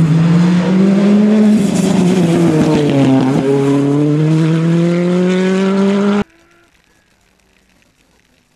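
Rally car engine running hard at high revs: the pitch falls as it slows about three seconds in, then climbs steadily under acceleration. The sound cuts off abruptly just after six seconds, leaving only faint background.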